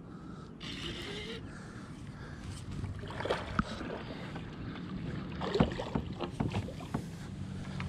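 Water sloshing against a plastic kayak's hull, with scattered small knocks and clicks.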